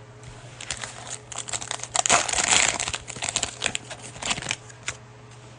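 Cellophane wrapper of a trading card pack crinkling and tearing as it is ripped open, loudest in a dense burst about two seconds in.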